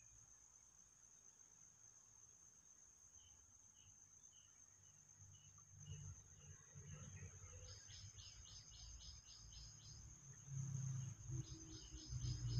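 Faint steady high-pitched insect drone from crickets or similar insects, with a few short chirps in the middle and two bursts of rapid trilling pulses in the second half. A low rumbling noise comes in about halfway and is loudest near the end.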